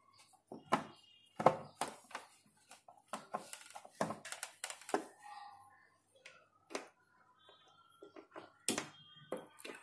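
Hands handling an electric water heater's casing and fittings: a string of sharp clicks and knocks at uneven intervals.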